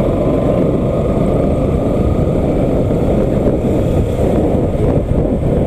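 Wind rushing over the microphone of a Bajaj Pulsar NS200 rider at road speed, a steady loud rush, with the bike's single-cylinder engine running beneath it.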